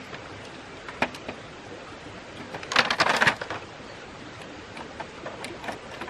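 Bamboo poles and split-bamboo slats knocking and clattering together as they are handled and fitted. There is a single knock about a second in, a rattling burst of knocks about halfway through, and a few lighter taps near the end, all over a steady background rush.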